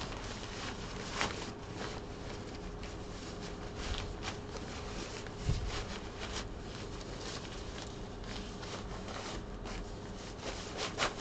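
Fabric carry bag rustling and rubbing as a folded steel-framed camping director's chair is pushed down into it, with a few light knocks and one dull thump about halfway through.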